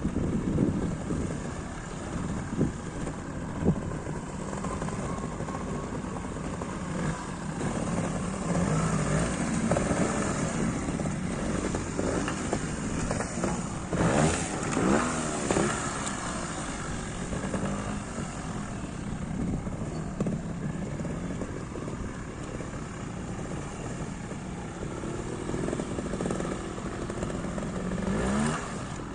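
Trials motorcycle single-cylinder engines idling, with short throttle blips and a burst of rising and falling revs about halfway through.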